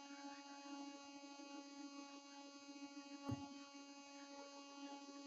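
Faint, steady electrical hum with many overtones, the recording chain's mains hum. A single short click about three seconds in.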